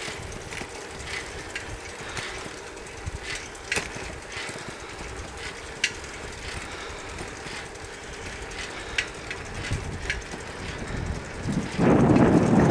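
Riding noise from a bicycle on a paved road: a steady rush of tyres and moving air, with scattered sharp clicks and rattles. Near the end, a loud gust of wind hits the microphone.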